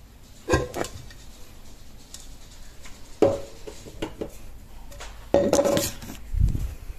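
Handling clatter of hard kitchen parts: a few separate clicks and knocks, a denser rattle about five seconds in, then a low thump near the end.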